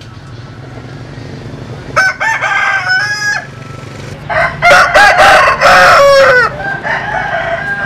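Roosters of a Vietnamese-American butterfly chicken cross crowing: two loud crows about two and four seconds in, the second longer, then a fainter crow near the end, over a steady low hum.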